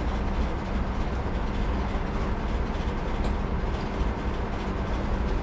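Steady low rumbling background noise with a constant hum, unchanging throughout.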